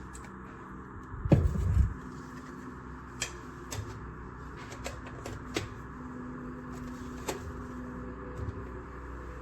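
A heavy knocking thud about a second in, then several sharp clicks and taps, over a steady background hum.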